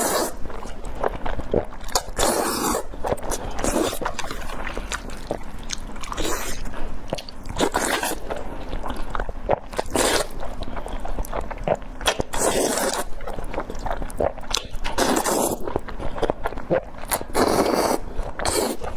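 Close-miked slurping of long wide flat noodles, a long loud slurp every two to three seconds, with wet chewing and smacking in between.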